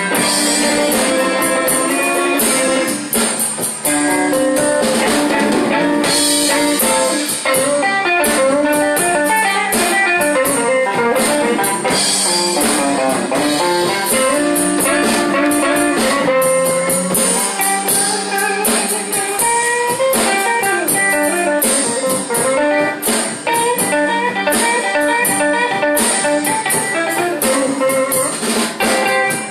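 Blues band playing an instrumental passage: guitar playing moving melodic lines over a drum kit, with steady cymbal strokes.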